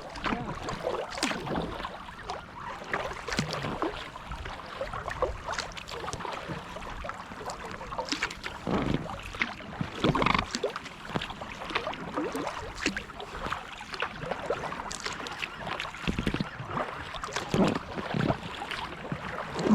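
Kayak paddle strokes: blades dipping into the water and splashing, with drips and gurgling between strokes, recurring every couple of seconds.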